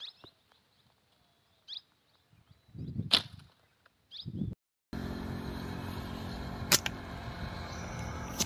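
A hand-made slingshot with breaker-rubber bands is shot once about three seconds in, giving a sharp snap with a dull thud around it, over faint bird chirps. After a short gap a steady rushing noise sets in, broken by two sharp clicks.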